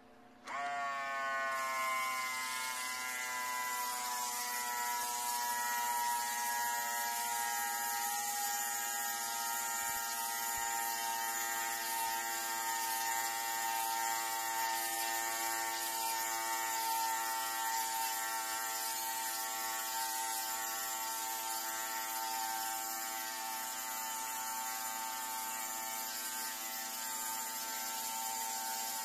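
Handheld nano mist spray gun running. Its small motor starts about half a second in and whines up in pitch, then holds a steady whine with a high hiss of spray over it.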